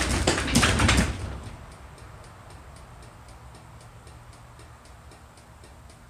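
Chamberlain garage door opener clicking in an even, steady rhythm, about two clicks a second, as it blinks its light instead of closing the door: the ten-click signal of a safety sensor fault. A brief loud rustling noise comes first.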